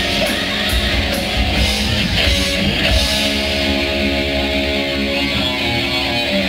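A live hard rock band playing, with distorted electric guitar and drums. The cymbal hits thin out about halfway through, leaving held guitar chords ringing.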